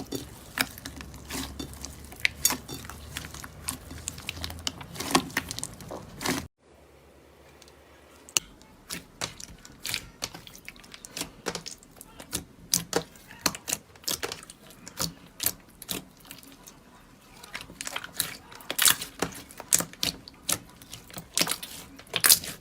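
Slime being squeezed and worked by hand, giving a dense run of sharp crackling pops and clicks. The sound drops out abruptly about six seconds in, then the popping resumes, softer at first and louder again near the end.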